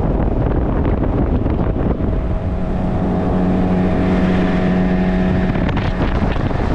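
Outboard motor running at speed on a small river boat under way, with wind buffeting the microphone. In the middle the engine's steady tone comes through more clearly.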